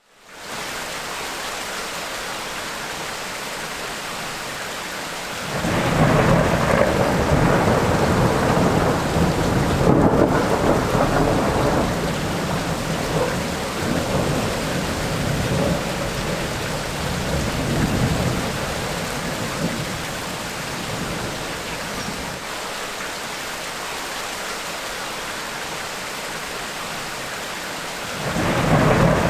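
Steady rain of a tropical rainstorm with thunder: a long rolling rumble starts about five seconds in and slowly fades over some fifteen seconds, and another peal starts near the end.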